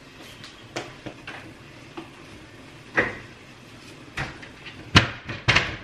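Kitchen pantry cabinet being opened and things inside it handled: scattered knocks and clacks, the two loudest near the end.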